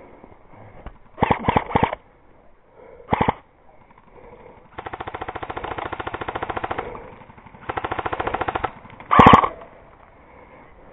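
Airsoft guns firing full-auto: a short rapid burst, a brief one, then a long burst of about two seconds and another of about a second, with a louder sharp crack near the end.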